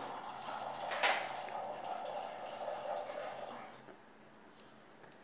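Wet sucking and slurping on a lime half held to the mouth, fading out after about four seconds.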